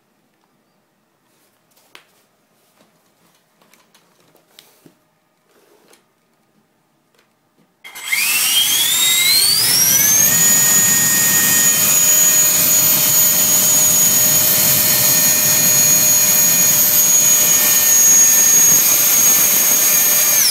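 Homemade 90 mm, 11-blade carbon-fibre electric ducted fan with a Turnigy SK3 brushless motor, spooling up about eight seconds in with a rising whine, then running at a steady speed with a loud high whine over rushing air, and cutting back at the very end. It is being run on a static thrust test stand. Before it starts, only a few faint handling clicks.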